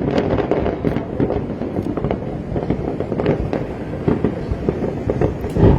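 Fireworks going off in a dense, continuous barrage of crackles and bangs over a low rumble, with a louder bang near the end.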